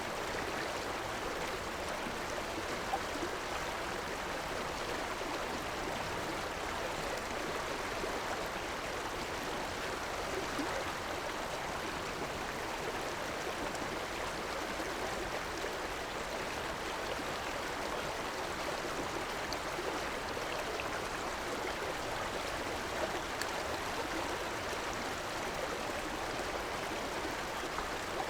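River water flowing and gurgling over rocks, a steady rushing that holds even throughout.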